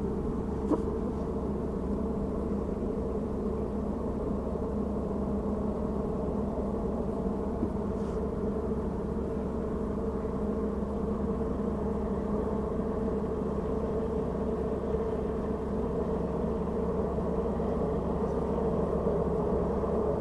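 Steady mechanical drone with a constant low hum, unchanging throughout, and a couple of faint clicks.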